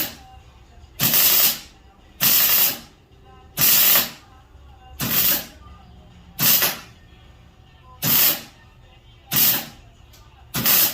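Electric welder laying a series of short welds, about eight hissing bursts of roughly half a second each, evenly spaced about 1.3 seconds apart. The welder is still set for thick 3/8-inch steel and runs too hot for the thin stainless sheet.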